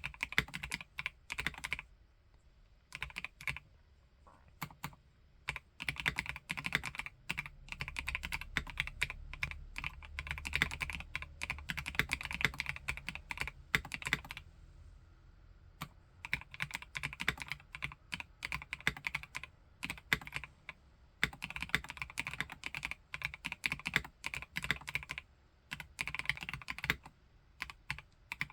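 Omnitype Bauer Lite 65% plastic-case mechanical keyboard with Gateron Snow Rabbit switches being typed on: runs of quick, steady keystrokes, broken by short pauses a few times.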